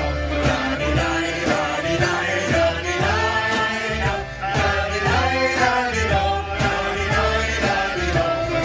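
Live band music: an upbeat song with a steady beat and bass, played on through an instrumental stretch.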